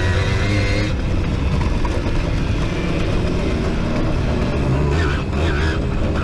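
Simson moped's two-stroke single-cylinder engine running hard at high revs, heard from a camera mounted on the moped. The revs dip briefly and climb again near the end.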